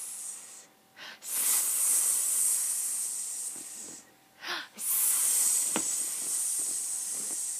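A person hissing 'sssss' in imitation of a snake: long drawn-out hisses one after another, each a few seconds long, with short breaths between.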